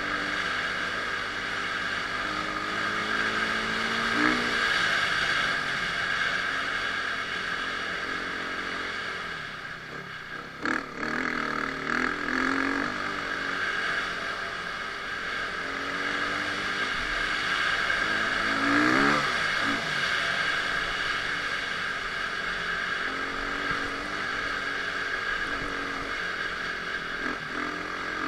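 Dirt bike engine running and revving, its pitch climbing and dropping again and again as the throttle opens and closes, with a few sharp louder bursts around ten to twelve seconds in.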